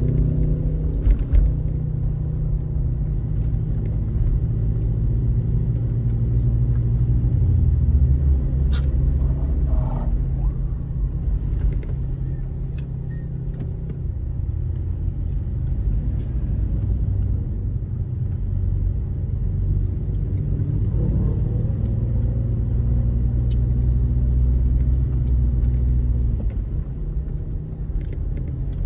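Steady low rumble of a car driving, heard from inside its cabin: engine and road noise, with the engine note shifting now and then as the car changes speed. A few faint clicks break through.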